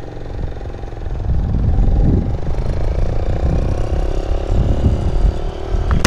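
Motorcycle engine running as the bike sets off and picks up speed, louder from about a second in, with wind rumbling heavily on the microphone.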